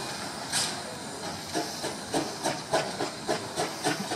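Narrow-gauge steam locomotive pulling away. There is a burst of steam hiss under a second in, then regular exhaust chuffs at about three a second.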